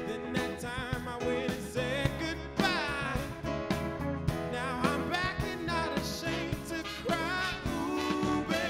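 Live band with drum kit playing an upbeat song, drums keeping a steady beat under a wavering melody line.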